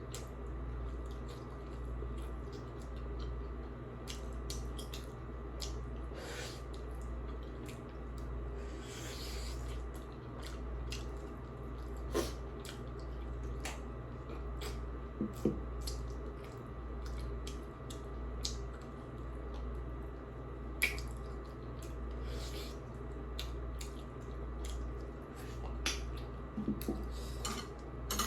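Someone eating soup and noodles: utensils clicking and clinking against bowls and dishes, with wet slurping sounds. A steady low hum runs underneath.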